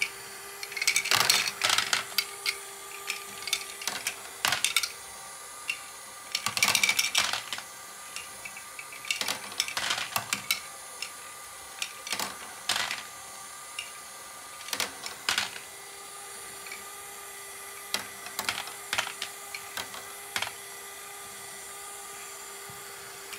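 Lego Great Ball Contraption double bucket wheel module running: a steady motor and gear whir under irregular bursts of small plastic balls clicking and clattering as the buckets carry and tip them. The clatter comes in frequent clusters at first and thins out in the last several seconds.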